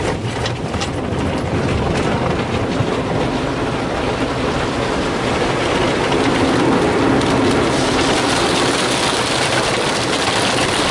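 Rotating brushes of a Ryko SoftGloss XS rollover car wash spinning and slapping over the car's roof and windshield, heard from inside the car, with water running over the glass. Sharp slaps come thick and fast at first, and the scrubbing grows a little louder about halfway through.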